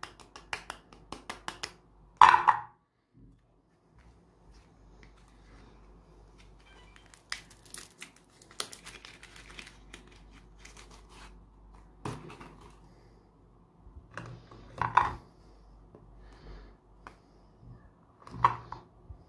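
Bars of soap clicked together in quick taps, then a loud knock. A soap wrapper is torn open and crinkled, and a few more knocks follow as bars are handled.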